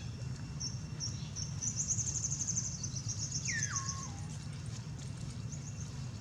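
Bird calling: a fast, high chirping trill over about two and a half seconds, then one whistle that falls in pitch in steps. A steady low rumble runs underneath.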